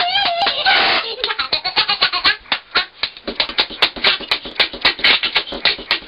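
A man's high, wavering vocal cry that stops about a second in, then rapid hand clapping, several sharp claps a second.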